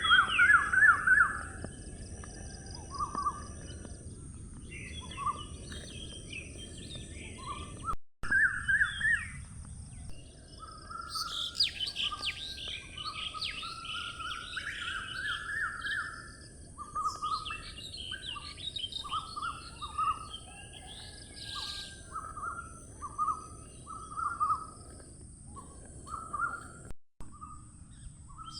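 Several songbirds chirping and trilling in overlapping, quick phrases over a steady low background hiss, busiest around the middle. The sound cuts out completely for an instant twice.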